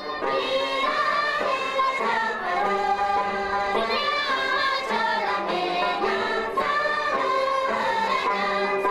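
Voices singing a Ladakhi folk song, with long held, gliding notes.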